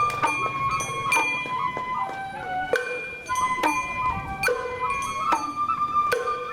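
Sawara festival hayashi: a bamboo flute plays held notes that step up and down in pitch, over regular drum and small metal gong strikes.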